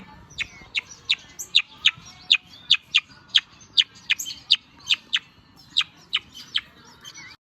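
A bird calling a long run of short, sharp, high chirps in a steady rhythm, about two or three a second, until the sound cuts off near the end.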